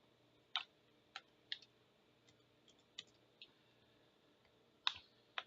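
Scattered single clicks of a computer mouse, about seven in all at uneven intervals, the sharpest two near the end, over a faint steady low hum.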